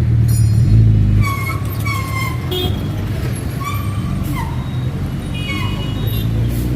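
A superbike engine running, loud for about the first second and then settling to a lower, steady idle, with several short horn toots over it.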